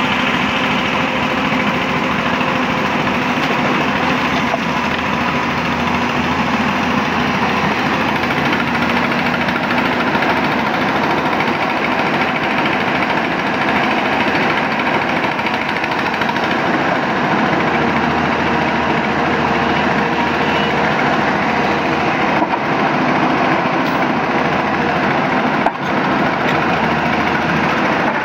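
Steady engine noise from a Hyundai 220-9S hydraulic excavator working at close range, mixed with a small engine-driven water pump running alongside it.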